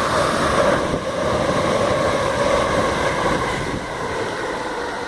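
An approaching train, heard as a steady noise with a faint hum that drifts slightly in pitch.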